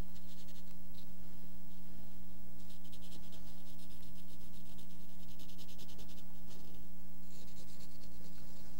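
Cotton swab dampened with turpentine rubbing back and forth over pastel on paper to blend and smear the colour: a soft, scratchy scrubbing in several spells, over a steady electrical hum.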